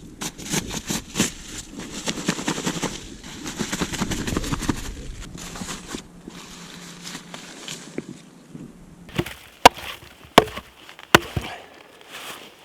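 Dense crunching and rustling for about five seconds, then, after a quieter stretch, three sharp, loud cracks under a second apart.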